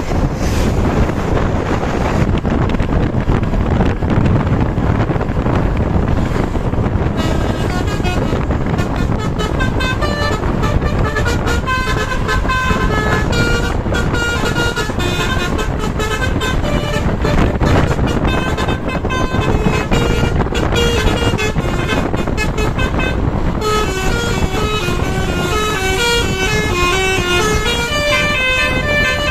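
A steady rush of wind and road noise, then about seven seconds in a tour bus's telolet basuri musical horn starts playing a melody of quick stepped notes, going on nonstop over the noise.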